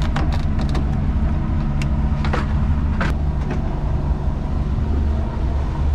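A boat's motor running steadily with the boat under way, with a few sharp clicks and clatters in the first three seconds as fishing lures are handled in a plastic tackle box.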